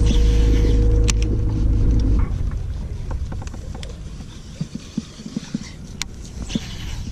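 Bow-mounted electric trolling motor on a bass boat running with a steady hum, cutting off about two seconds in; after that come a lower background and a few light clicks.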